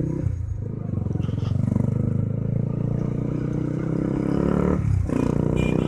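Honda CB150R motorcycle's single-cylinder engine running while riding, the engine note wavering with the throttle and dipping briefly near the end before picking up again.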